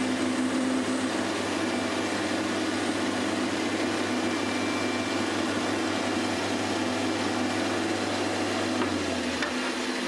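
Mini metal lathe running steadily, its spindle turning an aluminium workpiece, with a motor hum and whir. The low hum shifts shortly before the end.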